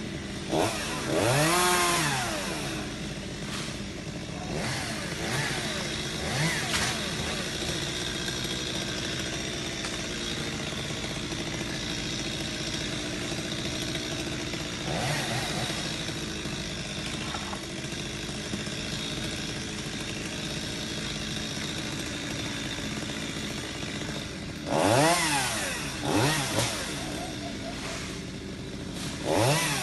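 Chainsaw engine running at idle, revved up briefly about a second in and again three times near the end, its pitch rising and falling with each rev.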